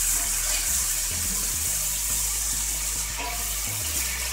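Barbecue sauce sizzling and bubbling in a hot cast-iron skillet, a steady hiss: about half a cup of water has just gone into the pan with the browned vegan pulled pork and seasonings, and it is steaming off.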